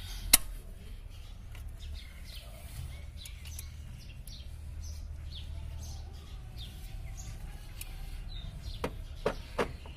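Small birds chirping, with one sharp, loud click about a third of a second in as pliers work a hose clip, and a few smaller clicks near the end as the hose and clip are handled.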